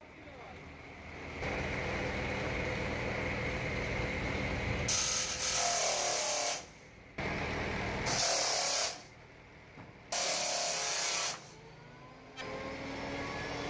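Table saw with a large circular blade running and ripping wooden planks: a steady motor hum, then three loud stretches of high-pitched cutting noise, each one to two seconds long, with quieter gaps between.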